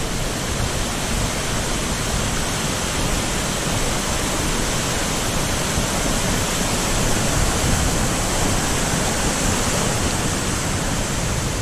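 Steady rush of small waterfalls pouring over a mossy rock ledge and splashing into a river pool, an even hiss with no breaks.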